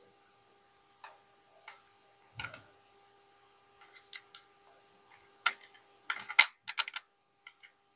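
Light clicks and taps of small parts and a marker being handled against a plastic tape-measure case, scattered, with a quick run of louder clicks about six to seven seconds in.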